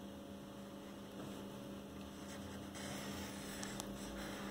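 Steady low electrical hum, with faint scratching of a marker pen drawing on paper.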